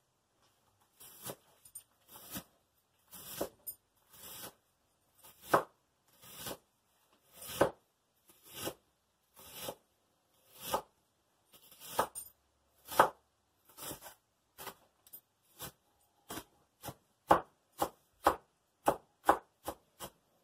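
Kitchen knife chopping a red onion on a wooden cutting board: sharp separate strokes about one a second that quicken to about two a second near the end.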